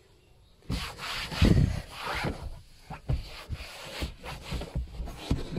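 Hand scrubbing on a car: rough rubbing strokes that start under a second in, loudest about a second and a half in, then shorter, irregular strokes.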